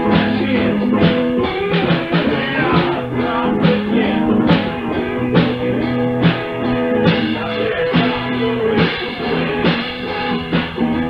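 Rock music from a digitized cassette tape: electric guitar and drum kit playing a steady beat, with the top end cut off, as on the tape.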